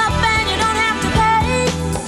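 Background music: a song with a wavering melodic lead over steady bass notes and drum hits.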